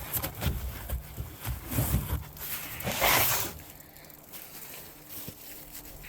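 Rustling and knocking of gear being handled, with a loud rustle about three seconds in; after that the handling is quieter.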